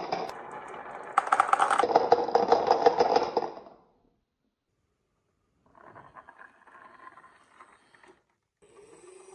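Marbles rolling and rattling down a marble run track, a rapid run of clicks that cuts off suddenly about four seconds in. After a short silence, fainter rattling of rolling marbles starts again.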